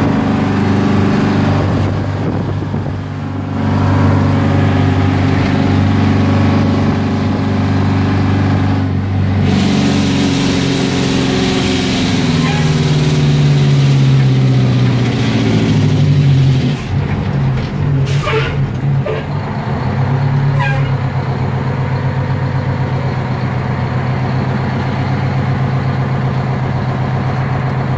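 A 1982 Hahn fire truck's 8V71N Detroit Diesel, a two-stroke V8, heard from inside the cab as the truck drives along. Its revs fall as the truck slows. A short hiss of air from the air brakes comes about two-thirds of the way in, then the engine settles into a steady idle at a stop.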